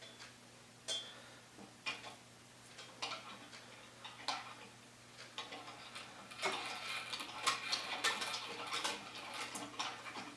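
Manual wire stripper being worked by hand on a length of solid wire: scattered clicks and taps, then from about six seconds in a denser run of clicking and scraping as the wire is drawn through the blade.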